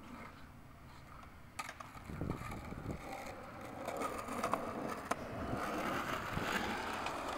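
Skateboard wheels rolling on asphalt, with a few sharp clicks of the board. In the second half a crinkling, crackly rustle of a foil chip bag being handled grows louder.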